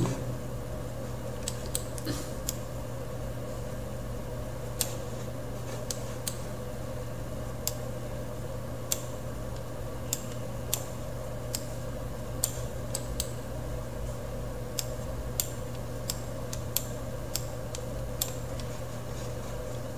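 Computer mouse clicking at irregular intervals, sharp single clicks every half second to two seconds, over a steady low hum.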